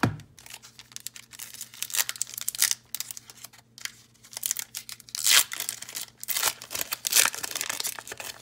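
Foil wrapper of a 1987 Sportflics baseball card pack being torn open by hand and peeled back, crinkling in irregular bursts.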